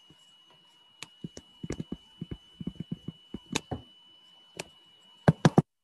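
Stylus tapping and clicking on a tablet screen while handwriting, a scatter of quick taps that ends in three louder clicks close together near the end. A faint steady high whine runs underneath and stops with the last click.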